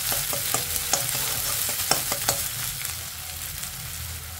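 Chopped onion sizzling in hot mustard oil in an aluminium kadhai, stirred with a wooden spatula that clicks and scrapes against the pan for the first two seconds or so. After that the sizzle goes on alone, slowly getting quieter.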